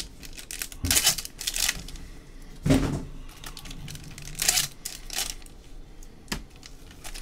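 Foil trading-card pack wrappers being torn open and crinkled one after another in quick rasping rips, about half a dozen in all, the loudest a little under three seconds in.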